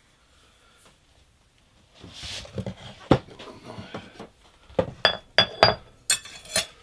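Cookware and utensils knocking and clinking: after about two quiet seconds, a run of sharp knocks, several with a brief metallic ring, and a short rattle near the end.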